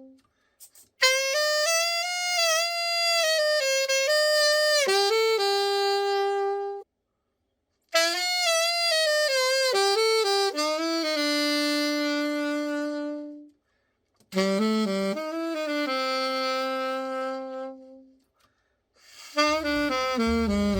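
Selmer U.S.A. AS400 alto saxophone being played after a full overhaul: three short melodic phrases with light vibrato, each followed by a brief silence. Near the end a fuller sound with a bass line comes in.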